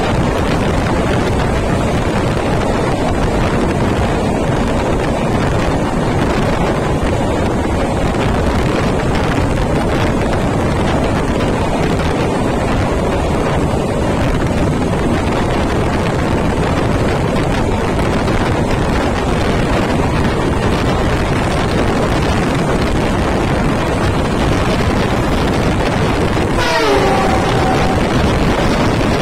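Passenger train running at speed, heard from an open coach door: a steady rush of wind on the microphone over the rumble of the wheels on the rails. Near the end comes a brief squeal that falls in pitch.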